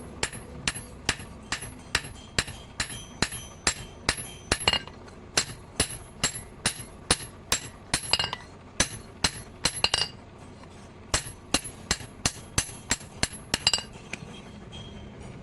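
Blacksmith's hammer striking steel on an anvil in a steady run of blows, about three a second, each with a short metallic ring. The hammering pauses briefly about ten seconds in, then resumes and stops near the end.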